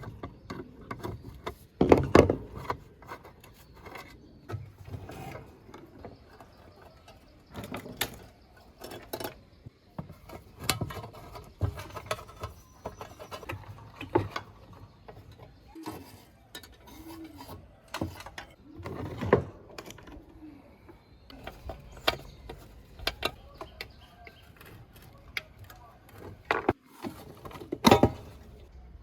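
Irregular clicks, knocks and clinks of a rusty old table fan's metal parts being handled and taken apart with hand tools. The loudest knocks come about two seconds in and just before the end.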